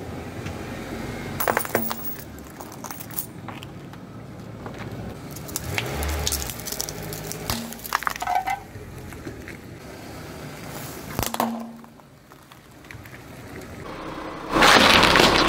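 Car tyre rolling slowly over a pile of coins on gritty asphalt: scattered clinks, cracks and crunches as the coins and grit are pressed and pushed under the tread. Near the end comes a loud rushing crunch about a second long.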